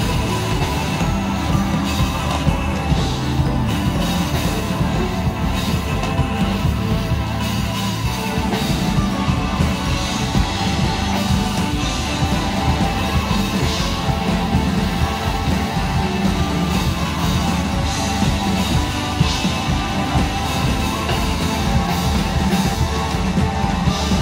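Live keyboards and drum kit playing loud, driving rock-leaning music.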